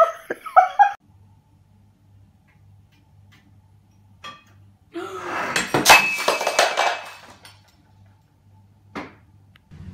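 A ceramic pet food bowl knocked off a kitchen counter crashing onto the floor and breaking, several sharp clattering impacts with a brief ring, dry kibble scattering. One short click follows near the end.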